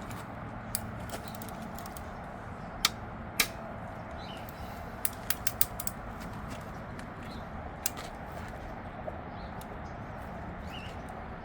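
Scattered sharp metal clinks of hand tools and bolts during an engine teardown, over a steady background hum. Two louder clinks come close together a few seconds in, and a quick run of clicks follows about halfway through.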